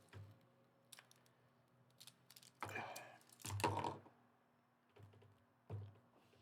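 Small model-kit pieces being handled and pressed together: a scatter of short clicks and knocks, with two longer rustling handling noises in the middle.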